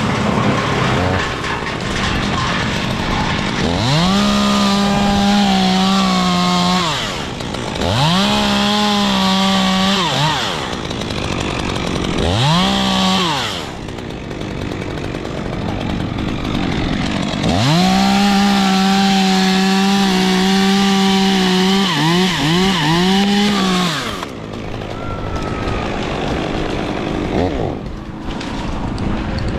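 Two-stroke chainsaw working on ash wood, run up to full throttle in four bursts with idling between them, the longest run lasting about six seconds and ending with a few quick blips of the throttle.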